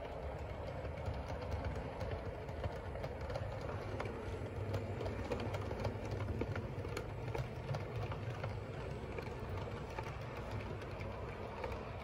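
Model railway diesel locomotive hauling parcels vans through the sidings: a steady electric motor hum, with the wheels clicking over rail joints and points.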